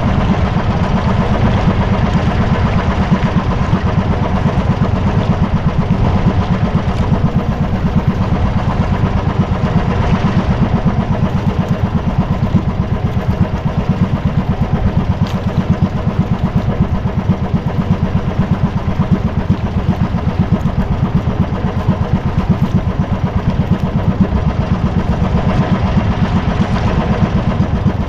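Small engine of a motorized outrigger boat running steadily, a fast even chugging that does not change in speed.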